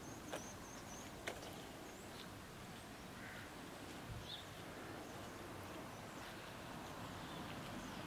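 Quiet outdoor background with a few faint, short, high bird chirps, and two sharp clicks in the first second and a half.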